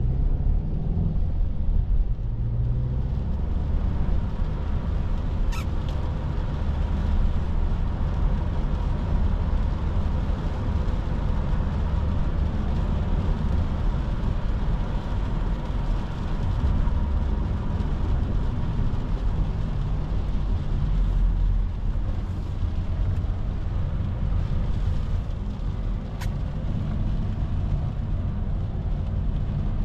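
Inside the cabin of a Volkswagen Caddy V van with a 2.0 TDI four-cylinder diesel, driving on a wet road in heavy rain: a steady low rumble of engine and tyres with an even hiss of rain and water spray.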